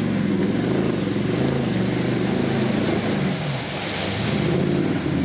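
Off-road 4x4's engine revving up and down under load as it ploughs through a mud pit, with a rush of spraying mud about four seconds in.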